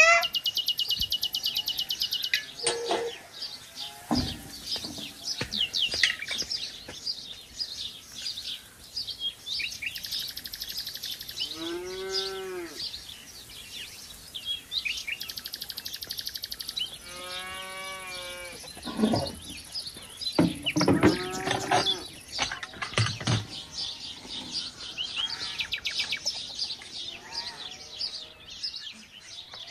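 A cow mooing twice, each a drawn-out call that rises and falls, about six seconds apart. Birds chirp throughout, with a high steady insect buzz in places and a few knocks.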